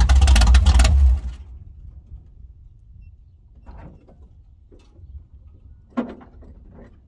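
Squarebody Chevy pickup's engine running loudly, then stopping about a second in. After that, a few faint clicks and knocks, with a sharper knock about six seconds in.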